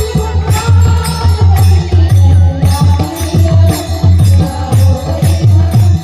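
Marathi devotional bhajan music: a sung melody over a fast pattern of deep hand-drum strokes and jingling small cymbals keeping the beat.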